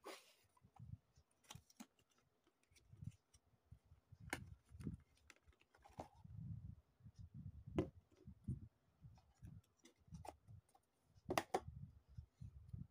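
Faint handling of a cardboard product box being picked up and opened and a plastic lotion bottle drawn out of it: scattered light taps, scrapes and clicks, a few of them sharper, over soft low rumbles of handling.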